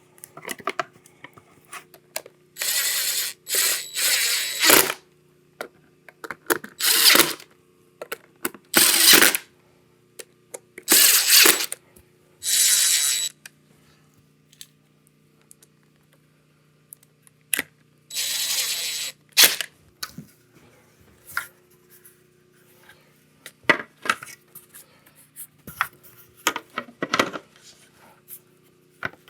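Cordless power driver running in several short bursts of about a second each, with small clicks and knocks between them, as bolts are driven home while a Onewheel is reassembled after a tire change.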